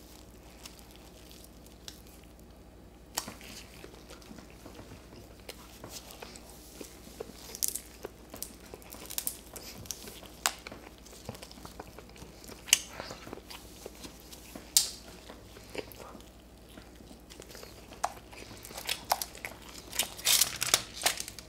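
Stir-fried crab being eaten by hand: shells cracking and being picked apart, with chewing, heard as scattered sharp cracks and crackles that grow denser and louder near the end.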